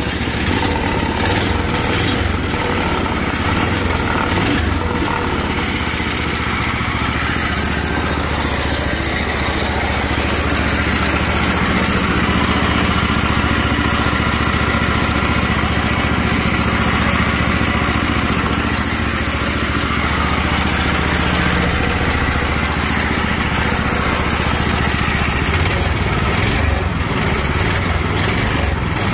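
Small single-cylinder gas engine of a golf cart conversion, driving a belt torque converter, running steadily after a choked start.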